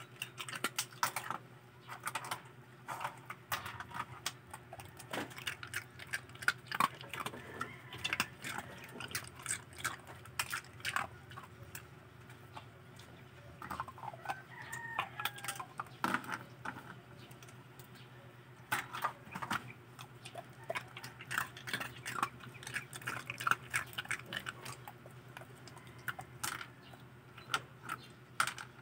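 Belgian Tervuren crunching and chewing ice cubes: irregular sharp cracks and crunches, with short pauses between bouts.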